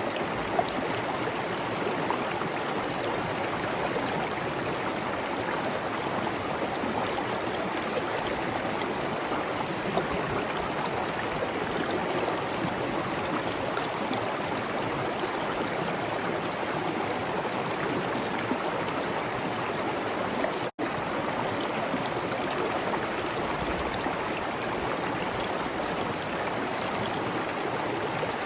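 Waterfall: a steady, even rush of falling water with no change in level. It cuts out for an instant about two-thirds of the way through, then carries on unchanged.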